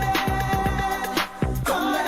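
Background music: a pop/R&B track with a steady drum beat and a long held note.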